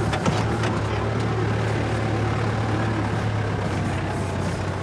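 Off-road vehicle heard from inside the cabin, driving along an unsealed lane: a steady low engine and tyre drone, with a few knocks and rattles in the first second or so.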